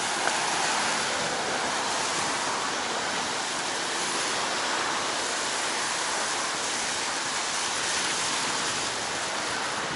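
Steady hiss of bicycle tyres rolling over wet, puddled asphalt in the rain, mixed with wind on the microphone from riding.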